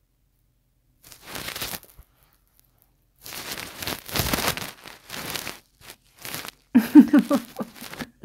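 Rustling and crinkling in several bursts, the longest lasting about two seconds, then a short, low voiced sound made of a few quick pulses near the end.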